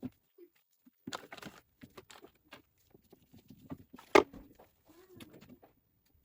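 Hands fitting a lubricated rubber tube back into a drone spray-pump housing: scattered rubbing and clicking handling sounds, with one sharp click about four seconds in.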